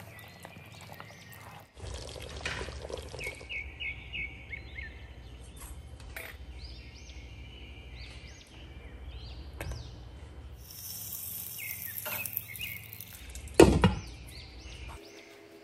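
A glass lid is set down on a metal cooking pot with one sharp clank near the end. Before it there is a brief high hiss, and faint chirps and a low hum run underneath.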